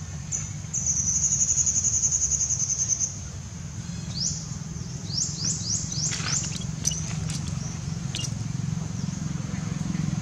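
Outdoor ambience: a rapidly pulsing high insect buzz for about two seconds, then a run of short, quick high chirps, over a steady low hum.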